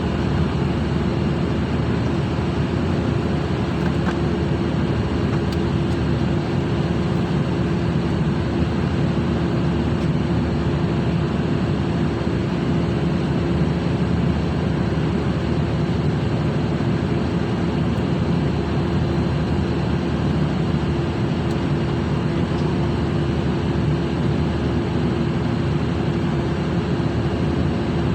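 Steady drone of a ship's machinery, an engine or generator running at constant speed with an unchanging hum.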